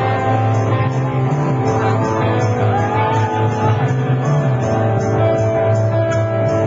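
Rock band playing live: electric guitars, bass and drums, with a steady cymbal beat and a strong sustained bass line.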